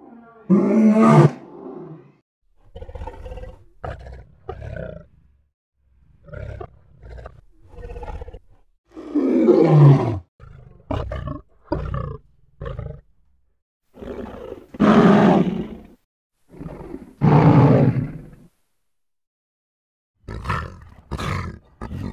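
Lion vocalising: four long, loud roars, one falling in pitch at its end, with many short grunts in between.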